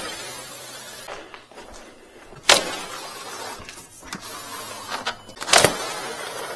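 Windows being opened: a sharp click about two and a half seconds in and another about five and a half seconds in, with a steady rushing noise between them.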